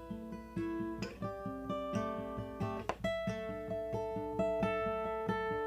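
Guitar picked in a steady pattern of notes and chords, playing through a song's chord progression for its rhythm part.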